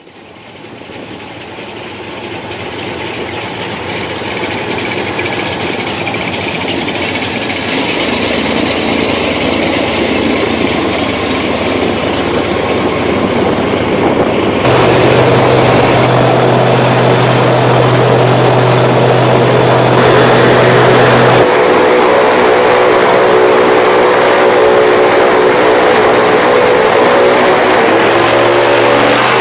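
Airboat engine and propeller running under way, a loud steady drone mixed with rushing wind and water noise. It grows louder over the first half, steps up to a stronger, steadier drone about halfway through, and shifts in pitch near the end.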